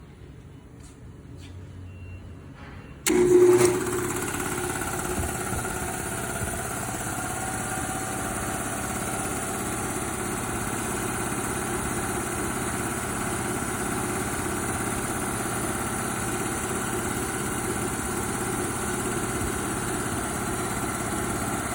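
A 7.5 hp two-cylinder, two-stage piston air compressor starts abruptly about three seconds in, with a brief loud surge, then runs steadily. A few faint ticks come before the start.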